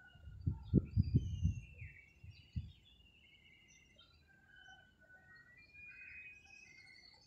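Birds chirping and whistling short calls throughout, with a cluster of loud, low thumps in the first three seconds.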